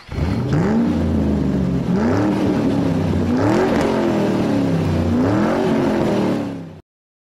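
Car engine revved four times, each rev rising in pitch and falling back, then cut off abruptly.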